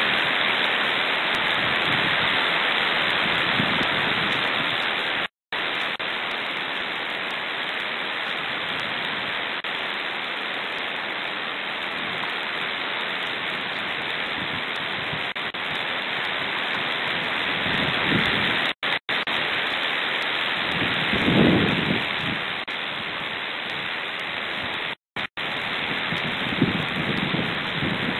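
Strong steady hiss of wind overloading the nest-camera microphone, with a few lower gusty swells. The sound cuts out completely for a moment three times.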